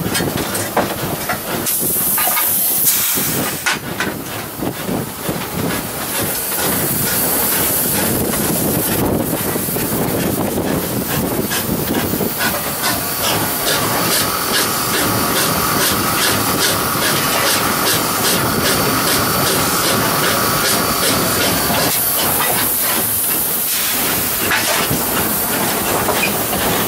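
Steam locomotive heard from inside its cab: a continuous hiss of steam with many short knocks and clanks, and louder gusts of hiss about two seconds in, around seven seconds and again near the end.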